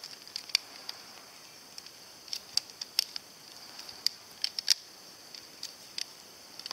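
Shock-corded metal poles of a collapsible camp chair being pulled out of and knocked against its metal hub: irregular sharp clicks and clacks, about fifteen in a few seconds.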